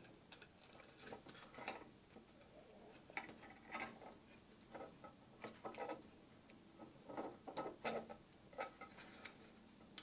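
Faint, irregular small clicks and taps of a 3D-printed plastic cover and a small touchscreen module being handled and fitted together by hand.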